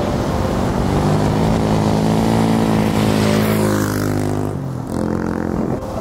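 A motor vehicle driving past, its engine tone steady and then falling about four seconds in as it goes by.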